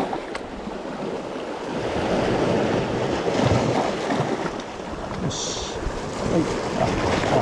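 Waves washing on the shore, swelling and easing, with wind buffeting the microphone.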